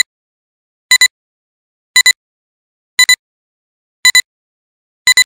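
Countdown-leader sound effect: a short, sharp electronic double beep about once a second, six times, with silence between.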